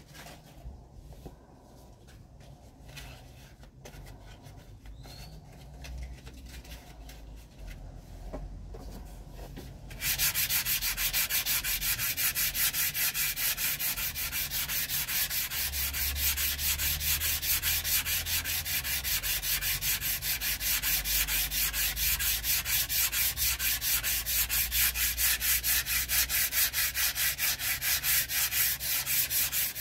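Hand sanding of a debarked wooden staff: sandpaper on a block rasping back and forth along the wood in fast, even strokes, first grade of the hand sanding. It is faint for about the first ten seconds, then much louder.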